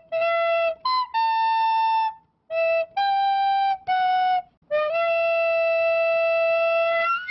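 Intro music: a solo flute plays a slow phrase of about seven separate notes. The last note is held for more than two seconds.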